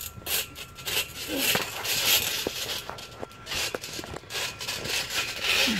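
Feet scuffing and thumping on a trampoline mat during backyard wrestling, with many short knocks and bursts of rustling hiss. Short voice sounds come about a second and a half in and again near the end.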